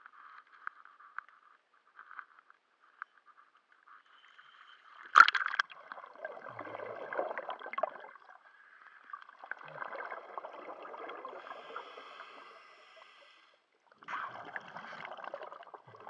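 Underwater, a scuba diver's regulator is breathing out: three long gurgling rushes of exhaust bubbles, a few seconds apart, with short quiet gaps between them. Before them come faint crackling and clicking, and a sharp loud burst about five seconds in.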